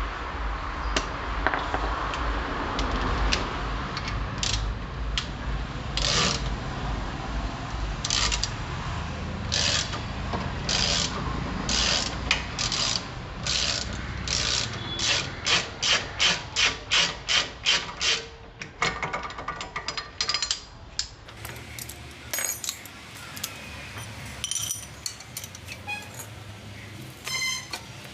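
Ratchet wrench clicking as it turns the screw of a bearing puller, working a jammed drive axle out of the wheel hub. The clicks come in strokes that quicken into a fast, even run partway through.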